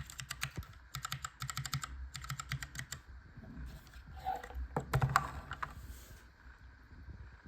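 A single Cherry MX Clear mechanical key switch, in a steel plate inside a bamboo keyboard case, is pressed repeatedly in fast bursts of clicks. About three seconds in the presses thin out to a few scattered strokes, the loudest around five seconds, and they stop about six seconds in.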